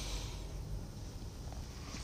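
Quiet, steady low background rumble outdoors, with a brief soft rustle or brushing sound right at the start as hands come away from the drum brake parts; no distinct metal clicks.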